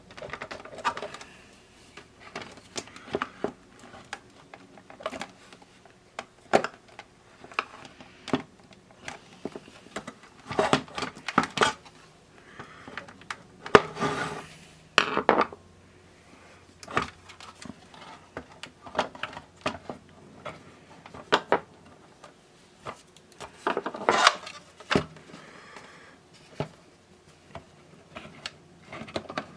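Irregular clicks, taps and rubbing as parts are handled and fitted inside a radio cassette player, with a few louder clusters of knocks.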